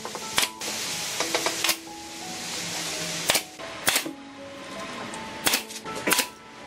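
Pneumatic nail gun driving nails into wooden boards: a string of sharp shots, several in quick pairs.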